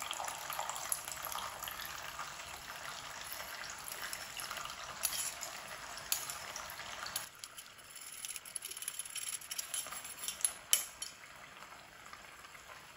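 Tamarind water poured through a small metal strainer into a pan of simmering tomato chutney, a steady hiss of liquid and bubbling. After about seven seconds it goes quieter, with light clicks and scrapes of a metal spoon pressing the tamarind pulp against the strainer's mesh.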